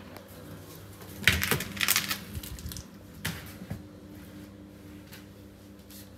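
Interior door's lever handle and latch clicking and rattling as the door is opened: a cluster of clicks lasting about a second, then two lighter knocks, over a faint steady hum.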